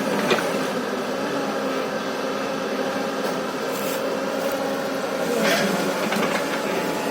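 Hyundai excavator's diesel engine running steadily while working. There are brief hiss-like noises about four and five and a half seconds in.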